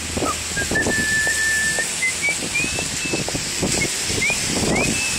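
A person whistling a slow tune in single clear notes, one held for about a second near the start and a couple of quick upward slides near the end. Under it there is a steady hiss of rain and irregular low thumps from walking.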